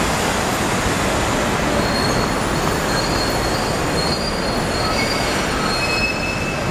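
Steady, loud rushing noise with thin, high-pitched squeals that come and go from about two seconds in.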